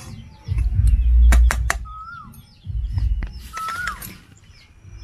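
Small birds chirping again and again, with a few longer whistled calls that fall in pitch. Two loud low rumbles on the microphone and a few sharp clicks break in among them.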